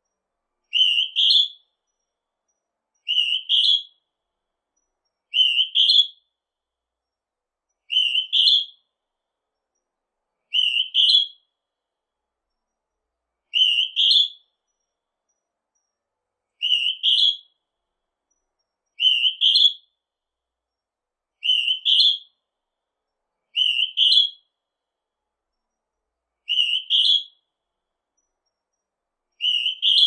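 Northern hawk-cuckoo calling: a shrill two-note phrase, each note rising and the second a little higher, repeated every two to three seconds, twelve times.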